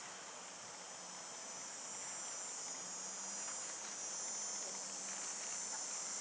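A steady, high-pitched chorus of insects chirring, growing a little louder about two seconds in.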